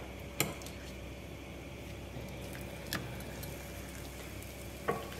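Chicken breasts sizzling gently in hot oil in a skillet, with a few sharp clicks of a metal fork against the pan as the pieces are laid in: about half a second in, about three seconds in, and near the end.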